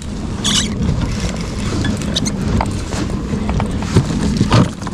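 Kayak being paddled on open sea: steady wind rumble on the microphone, a short splash of water about half a second in, and a few knocks on the hull near the end.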